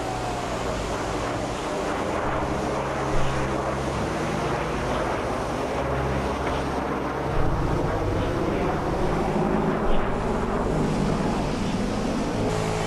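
Jet engine noise from a formation of military jets flying overhead: a steady rushing sound with no clear pitch.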